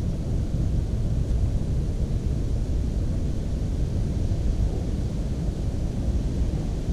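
Wind buffeting the camera's microphone: a steady low rumble with no clear bird song above it.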